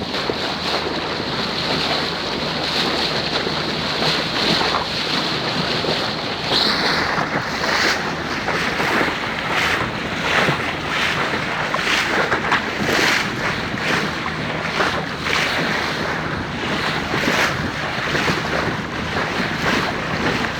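A small fishing boat's engine running under way, with water rushing and splashing along the hull and wind buffeting the microphone. A steady high whine stops about six seconds in, after which the splashing turns choppier and more broken.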